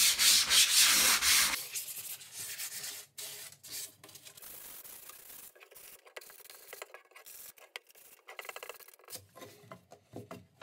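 A sheet of P220 sandpaper rubbed by hand over a raw wooden cradled board: rasping back-and-forth strokes, loud for the first second and a half, then lighter scratchy strokes along the edges. It is a light sanding to remove small splinters and smooth the bare wood.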